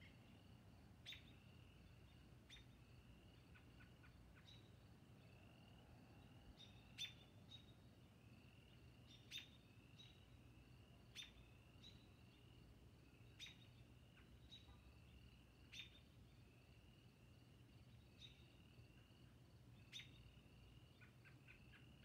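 Faint spring night chorus: a short, slightly rising call repeated about once a second, with sharper, higher calls cutting in every two seconds or so over a low steady hum.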